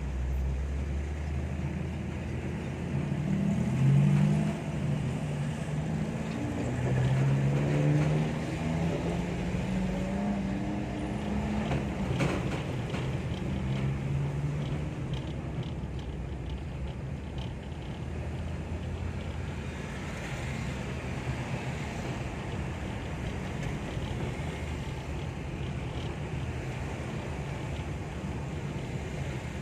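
Vehicle running on the road, with a steady low rumble and road noise. A wavering pitched sound comes and goes over it from about three to fifteen seconds in.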